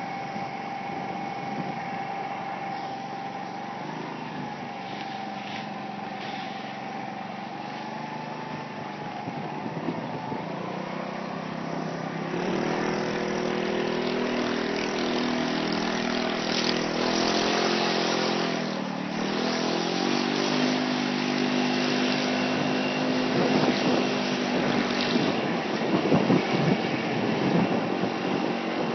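Small moped engine running, growing louder about twelve seconds in as it picks up revs. Its note drops briefly about nineteen seconds in, then rises again.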